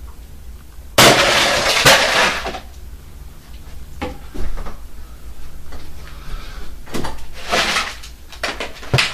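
A golf club strikes a plastic bottle pressurised with dry ice about a second in, a loud hit and clatter lasting about a second and a half as the bottle is knocked away. Softer knocks and handling noises follow as the unburst bottle is picked up and set back down.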